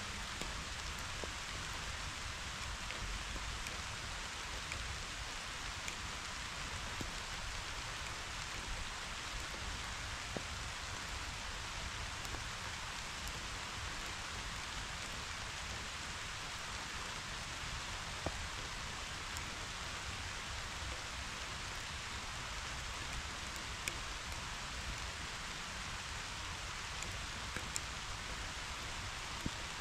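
Steady summer rain falling on meadow grass and leaves: an even, continuous hiss with a few sharp ticks of single drops landing close by.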